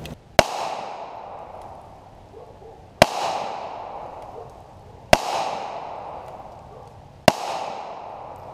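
Sarsilmaz CM9 Gen 2 9mm pistol firing four single shots about two seconds apart. Each sharp report is followed by a long echo that dies away.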